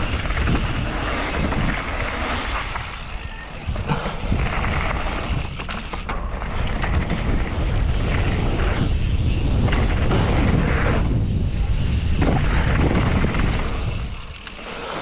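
Wind buffeting the microphone of a camera carried on a mountain bike ride, a deep rumble with a rushing noise and scattered sharp knocks. It drops away near the end.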